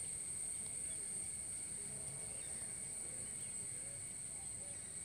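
Steady high-pitched insect trill, with scattered faint chirps.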